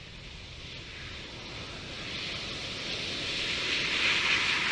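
Lilium 5th-generation demonstrator eVTOL's electric ducted fans at vertical lift-off: a smooth, whooshing hiss with no clear whine or engine note, growing steadily louder from about a second and a half in as the aircraft rises into a hover.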